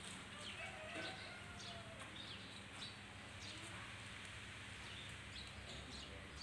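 Faint scattered bird chirps, short high notes every half second or so, over a low steady background rumble.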